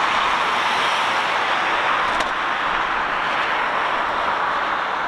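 Jet airliner engine noise at an airport: a loud, steady rushing sound that eases slightly near the end.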